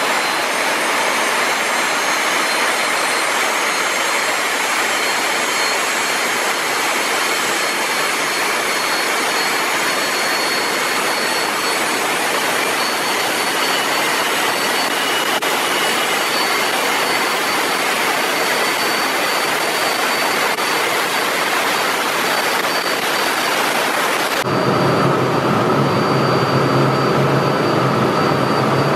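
GE LM2500 gas turbine running steadily: a loud rushing roar with thin, steady high-pitched compressor whines. About 24 seconds in, the sound cuts abruptly to a duller, lower drone with a steady low hum, as heard from the control room through the test-cell window.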